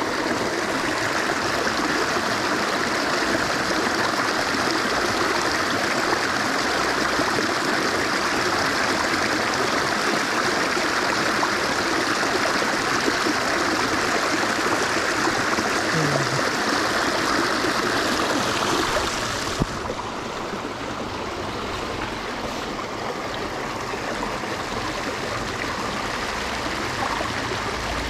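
Steady rush of a flowing stream running over rocks. It becomes a little quieter and duller suddenly about two-thirds of the way through.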